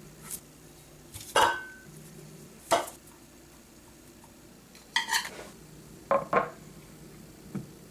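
Kitchenware being handled: several separate sharp clinks and knocks of dishes and utensils, one followed by a brief ring, with a pair close together near the end.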